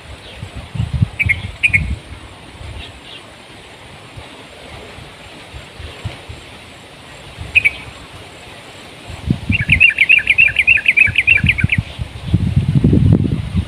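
Wind buffeting the microphone in low gusty rumbles, strongest in the second half, with small birds chirping: a few single chirps, then a fast run of about six chirps a second lasting some two seconds.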